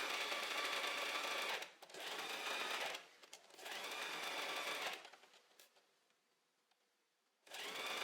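Domestic sewing machine stitching a jersey seam in short runs, stopping briefly twice and then pausing for about two seconds before starting up again near the end.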